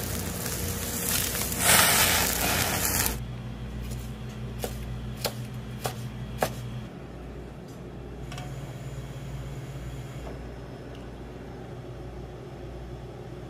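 Whole gizzard shad sizzling on a grill rack, a steady hiss for about three seconds. Then a knife slicing fish on a cutting board, about five sharp taps, followed by a quiet steady hum.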